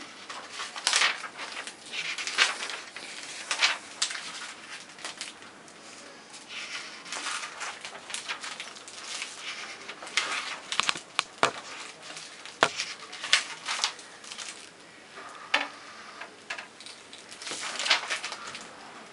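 Paper pages of a spiral-bound manual being turned and leafed through: repeated rustling swishes of paper with a few sharp flicks.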